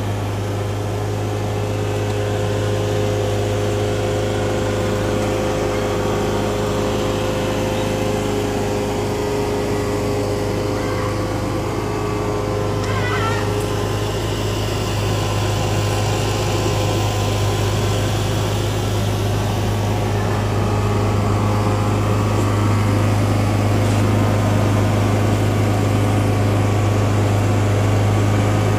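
Hữu Toàn 9 kW generator running steadily with an even, smooth engine hum, a bit louder in the later part.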